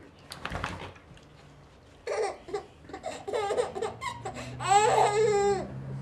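Baby laughing in a run of short bursts, ending in a longer, high squealing laugh near the end.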